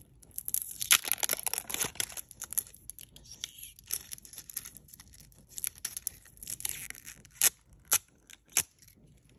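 Clear plastic wrap being peeled and torn off an oil stick by hand, crinkling and crackling irregularly, with three sharp snaps of the plastic near the end.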